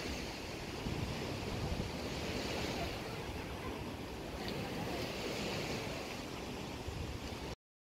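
Steady wind rushing over the microphone, mixed with the wash of river water. It cuts off suddenly to silence near the end.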